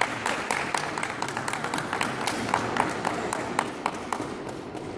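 A small crowd of spectators clapping after a point in a squash match: scattered, irregular hand claps that thin out and fade away.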